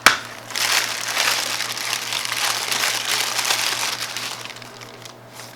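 Packaging crinkling and rustling as it is handled, after a sharp click at the start, fading away near the end.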